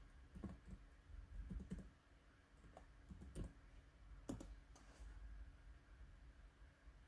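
Faint, irregular keystrokes being typed on a laptop keyboard.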